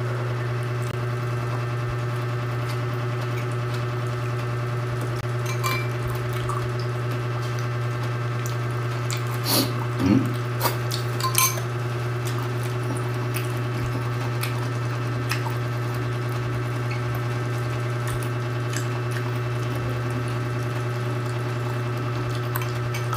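A steady low electrical hum, with a few brief clicks and knocks of eating at a table, like a spoon against a ceramic bowl.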